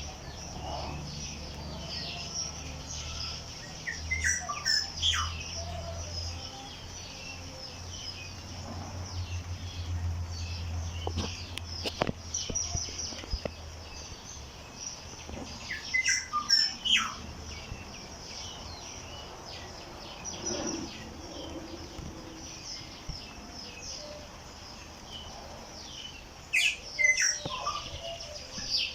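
Several wild birds chirping and singing, with short high calls throughout and louder flurries of calls about 4, 16 and 27 seconds in. A low steady hum sits underneath for the first half.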